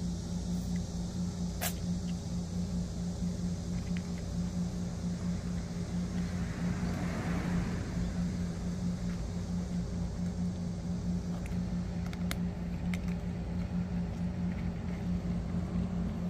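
Steady low hum of a running engine, unchanging throughout, with a few faint clicks.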